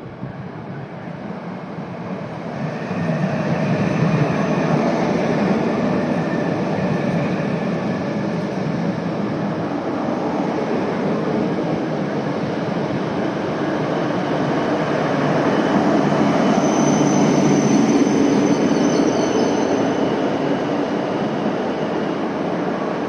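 Yamagata Shinkansen E8-series train pulling into a platform: the running and wheel noise grows over the first few seconds and then holds steady. A thin high squeal, from the brakes or wheels, comes in about two-thirds of the way through and lasts a few seconds.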